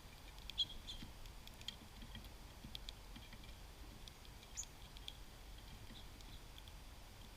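Small songbirds at a seed feeder: scattered short, high chip notes and sharp clicks, the loudest about half a second in.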